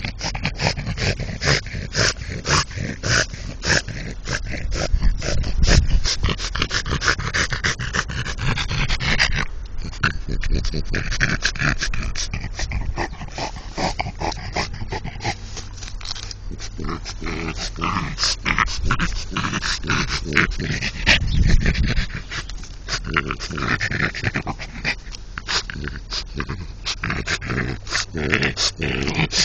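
French Bulldog breathing noisily close to the microphone, a rapid string of short snuffles and grunts, the typical noisy breathing of a flat-faced breed.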